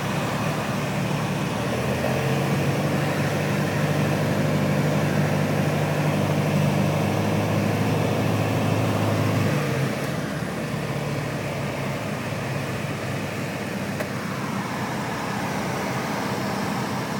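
Single-engine light aircraft's piston engine and propeller heard from inside the cockpit, running steadily. About ten seconds in the engine note drops lower and quieter.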